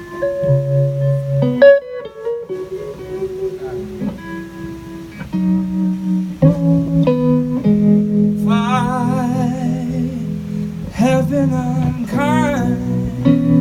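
Solo guitar playing an instrumental passage of a slow song: held notes and chords changing every second or so, with wavering, vibrato-laden high notes in the second half.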